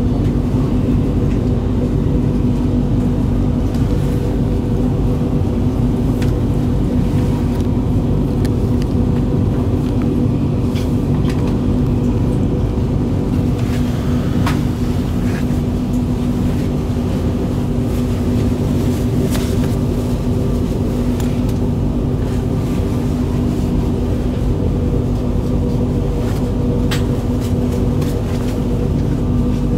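Steady rumble inside the passenger cabin of a VR Pendolino tilting high-speed train running along the track, with a steady hum and a few faint ticks.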